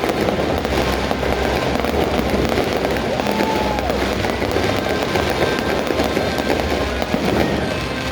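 Fireworks display going off in a dense, continuous barrage of bangs and crackling over a low rumble.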